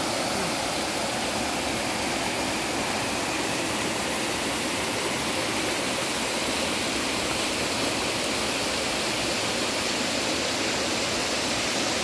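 Mountain stream water rushing steadily in one unbroken wash of noise.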